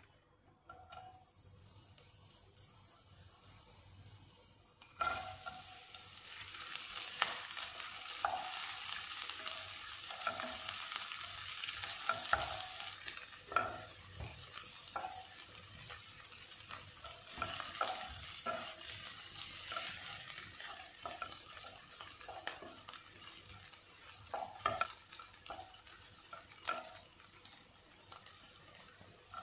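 Chopped garlic and brown onion sizzling in hot cooking oil in a stone-coated nonstick pot, stirred with a wooden spatula that scrapes and taps against the pan. The sizzle starts suddenly about five seconds in, is loudest for the next several seconds, then eases a little.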